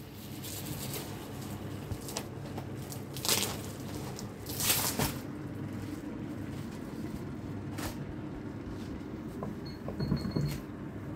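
Plastic bags rustling and goods being handled at a shop counter, with two louder rustles about three and five seconds in and a few small clicks and knocks, over a steady low hum.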